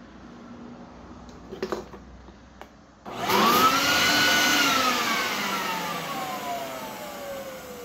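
Earthwise corded electric leaf blower's motor and fan switched on about three seconds in after a couple of small clicks: a whine that rises quickly as it spins up, then falls steadily in pitch as it runs down. The blower, reported as not working, starts up.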